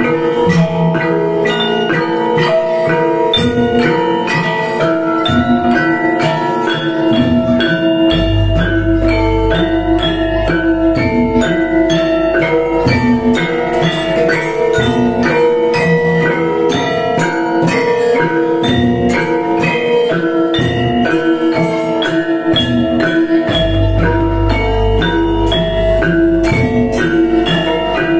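Javanese gamelan ensemble playing: bronze saron metallophones and kettle gongs strike a fast, ringing melody over a kendang drum. A large hanging gong sounds a long, deep boom twice, about eight seconds in and again some fifteen seconds later, marking the end of each cycle.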